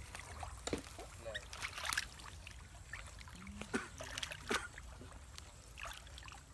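Water splashing and trickling in irregular short strokes, about six over a few seconds, over a steady low rumble.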